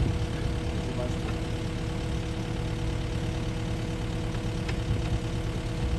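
An engine running steadily at a constant speed, a hum that holds one pitch without revving.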